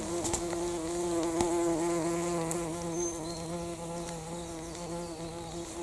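A flying insect buzzing: a steady low hum that wavers slightly in pitch.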